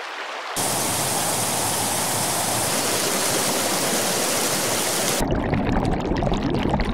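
Rushing, splashing water: a steady hiss that starts about half a second in and turns into a lower, rougher splashing a little after five seconds.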